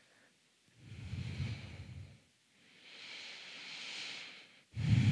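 A person breathing slowly and audibly during a held yoga pose: a soft, low rush of air about a second in, then a longer hissing breath, and a louder breath starting just before the end.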